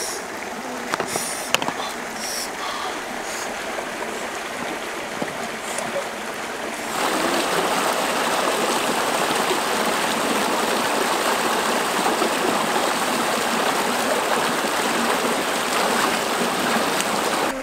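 River water running, quieter at first with a few light clicks, then from about seven seconds in a small rocky cascade pouring over rocks, a loud, steady rush.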